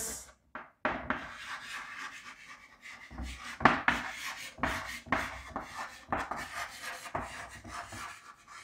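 Someone writing by hand: a run of irregular scratchy strokes and light taps of a writing tool on a surface, starting about a second in.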